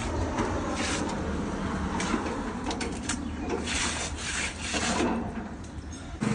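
Rough scraping strokes of a hand tool drawn across concrete, about six irregular strokes over a few seconds, with a lull near the end, typical of finishing or scraping during the concrete pour and clean-up.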